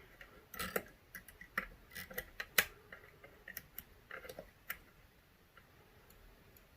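Small, irregular metallic clicks of a lever pick and tension tool working inside a Chubb five-lever mortice lock, as the pick probes the fourth lever, which is hard to read and seems to stick. The clicks are sparse and stop about five seconds in.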